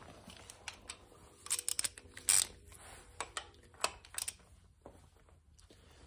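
Metal tools clinking: a socket being picked up and fitted to a socket wrench, a handful of sharp, irregular clicks, the loudest about two seconds in.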